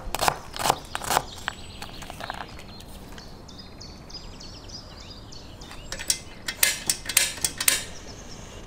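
Kitchen knife chopping onion on a wooden cutting board: a few sharp chops in the first second or so. After a lull, a quick run of sharp clicks and knocks comes about six to eight seconds in.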